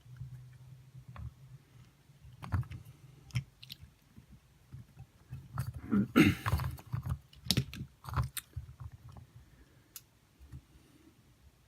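Small clicks and rustles of motor parts being handled and fitted together by hand, with a louder scraping rustle about six seconds in. A faint low hum sits under them.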